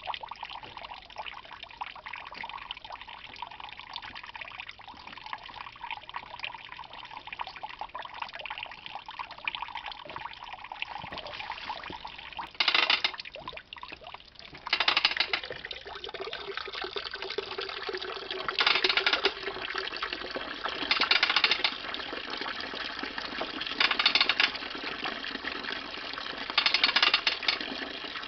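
Pinot Gris juice trickling steadily from the spout of a wooden basket wine press into a plastic tub. From about halfway on, the press's ratchet lever is worked, giving six short loud bursts of ratchet noise about every three seconds as the screw is tightened down on the grapes.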